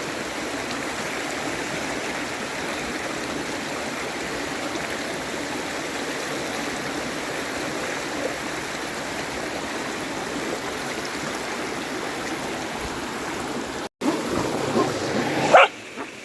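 Rain-swollen creek rushing strongly and steadily. Near the end the sound breaks off for an instant, and a few louder, sharper sounds follow.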